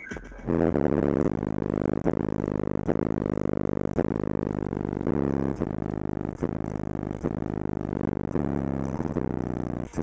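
Bass-heavy music played loud through a 10-inch Alpine Type S car subwoofer, heard inside the car, with a steady beat a bit faster than once a second starting about half a second in.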